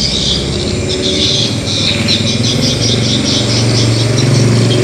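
An engine or motor running steadily with a rattle over it, its hum growing stronger about three seconds in.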